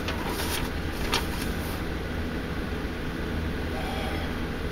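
Steady low background rumble, with a few faint light clicks in the first two seconds.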